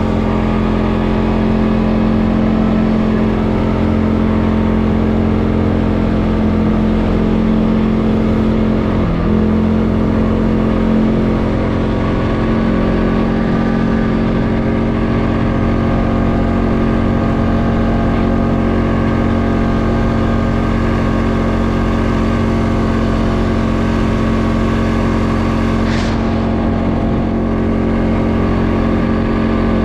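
CFMoto ATV engine running at a fairly steady speed while riding, a continuous drone with little change in pitch. A single short click comes near the end.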